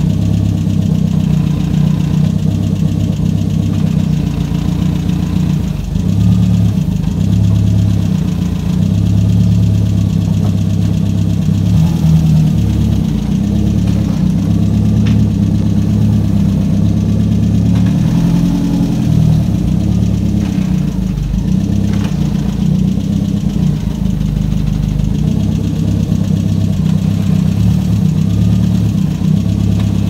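VW Gol G2 CHT engine running at low revs as the car is eased back and forth on the clutch, with a few light knocks. There is only a slight noise on clutch engagement, which the owner puts down to the clutch pedal height being set too high so it engages late and judders.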